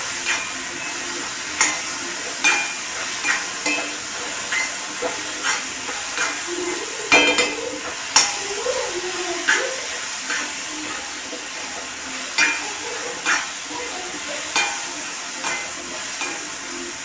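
Bananas and raisins frying in ghee in a metal kadai: a steady sizzle, with a utensil scraping and knocking the pan about once a second as the mix is stirred.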